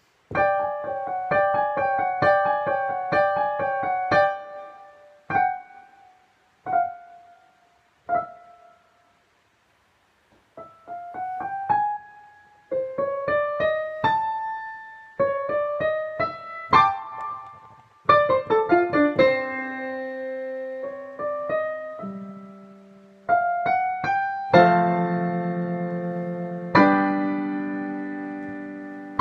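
Digital piano playing a light solo piece: repeated chords at first, then a few single notes with pauses between them, then quicker rising runs, ending on held low chords that ring on.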